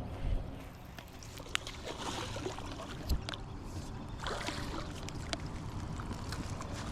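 Scattered small clicks and knocks over a low background, with brief patches of water sloshing.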